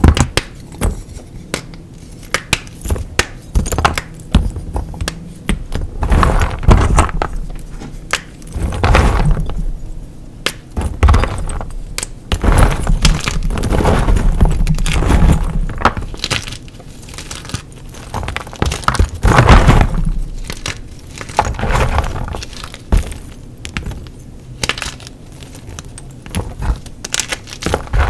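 Blocks of gym chalk being crushed to crumbs: many sharp cracks and snaps, with longer crunching spells every few seconds.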